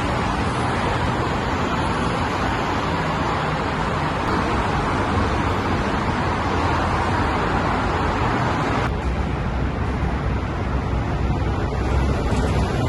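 Steady vehicle rumble with road noise; the higher hiss drops away about nine seconds in.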